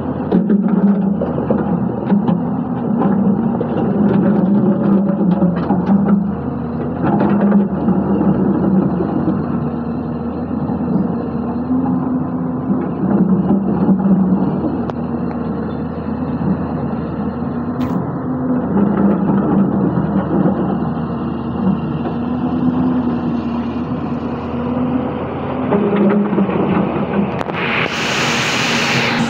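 Diesel engine of a Hyundai 220-9S crawler excavator running under working load while it digs gravel and stones from a riverbed. Its pitch rises and falls as the hydraulics take up load, with sharp knocks of stone in the first few seconds and a brief rush of hiss near the end.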